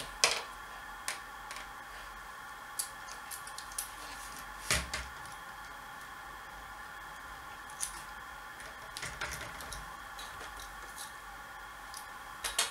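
Small screwdriver working the tiny screws out of a Syma X8C quadcopter's main board, with the plastic frame being handled: scattered light clicks and knocks, the loudest about five seconds in. A steady faint high hum sits underneath.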